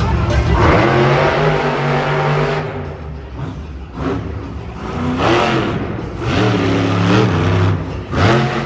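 Monster truck engine revving in repeated surges, its pitch climbing and falling with each one: a long rise near the start, then shorter bursts through the rest.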